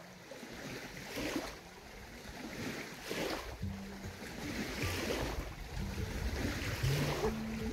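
Wind on the microphone and lake water lapping, swelling and easing every second or two.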